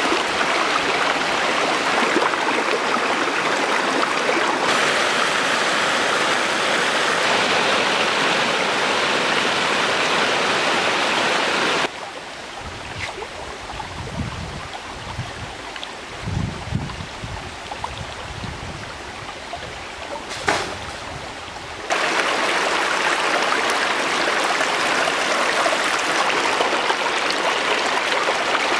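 Shallow rocky stream rushing and splashing over stones in a steady, even wash. In the middle it drops to a softer flow for about ten seconds, with irregular low thumps and one sharp click, before the full rush comes back.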